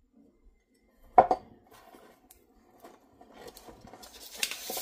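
Steel pliers being handled on a sheet of paper over a wooden bench. There is a sharp clack about a second in as a pair is set down, then light metal clicks and a swelling rustle of paper near the end.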